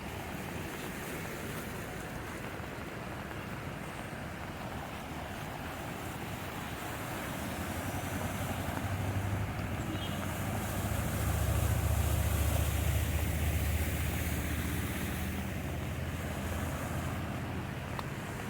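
A heavy vehicle passing through floodwater: its low engine rumble builds from about halfway through, is loudest about two-thirds in, then fades, over a steady wash of water noise.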